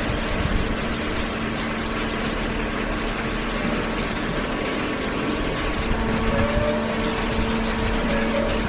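Horizontal hydraulic waste paper baler running: a steady machine hum from its hydraulic pump and motor over a constant rushing noise.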